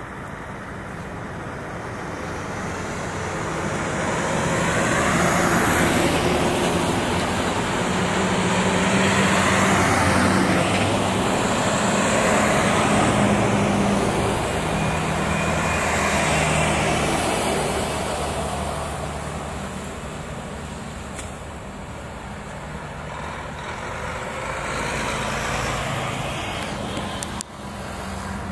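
Heavy Scania V8 truck's diesel engine running as it drives towards and past, with tyre noise. It grows louder over the first few seconds, stays loud for about ten seconds, then fades away, with a smaller swell near the end.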